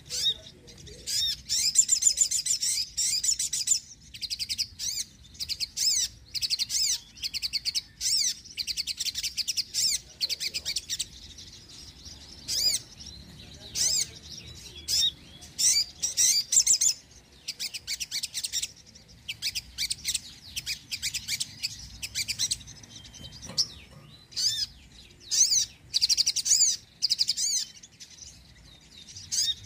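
Sunbird (sogon) singing: fast, high, twittering trills in phrases of a fraction of a second to a few seconds, repeated with short gaps.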